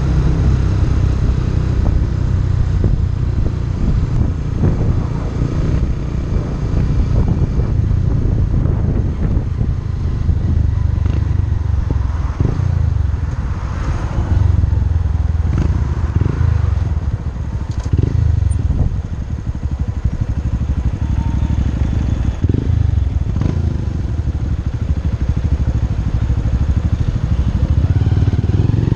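Motorcycle engine running at steady road speed as it rides along, with heavy wind rumble on the microphone.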